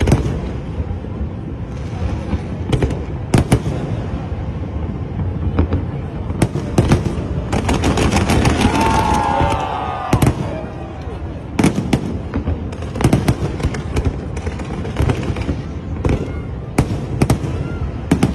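Aerial firework shells bursting in an irregular series of sharp bangs, sometimes in quick clusters, about one every second or so.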